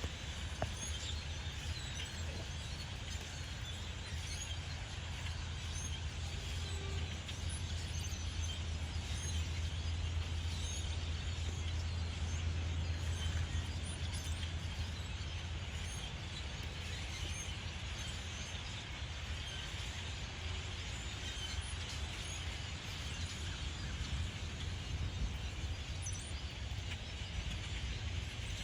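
A flock of birds chirping, with many short, high calls scattered throughout. Under them runs a low, steady rumble that is strongest in the middle.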